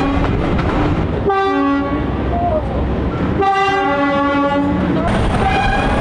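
A train's two-tone horn sounds high then low, twice, with the second low note held longer. It is heard over the rumble and clatter of a moving train, and more horn notes sound near the end.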